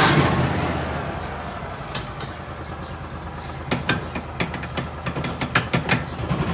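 Farm utility vehicle ("mule") with a fuel engine, not an electric motor, running noisily. It is loudest at the start, then settles to a steady low hum, with a quick run of sharp rattles and knocks in the second half.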